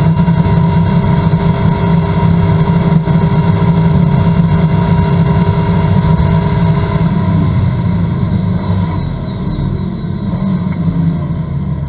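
Corvette race car's V8 engine at full throttle, a steady high-revving note heard from inside the cabin. About eight seconds in the engine note drops off and gets quieter as the car slows from around 150 mph.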